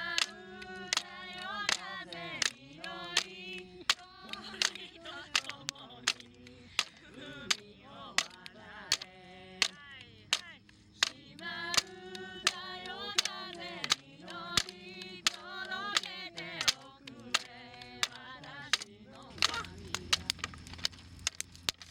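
A group singing together with hand clapping in a steady beat, a clap about every two-thirds of a second. Near the end the singing stops and the clapping carries on, quicker and more ragged.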